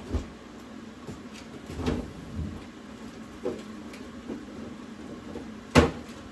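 Scattered knocks and clunks of kitchen items being handled and set down, about six in all, the loudest a sharp knock near the end.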